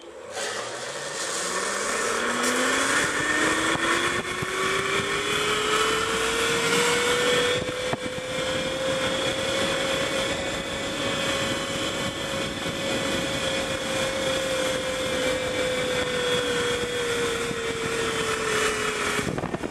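Zipline trolley pulleys running along the steel cable at speed. Their whine rises in pitch over the first several seconds as the rider speeds up, holds steady, then dips slightly near the end, over a continuous rush of wind.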